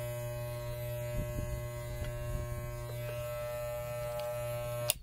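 Corded Wahl electric pet clippers buzzing steadily while shaving a cat's matted coat. The buzz cuts off with a click near the end.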